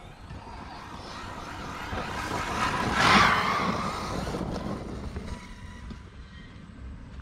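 ARRMA Mojave RC desert truck with a brushless electric motor driving fast over loose sand, its tyres spraying sand. It grows louder to a peak as it passes close about three seconds in, then fades as it drives away.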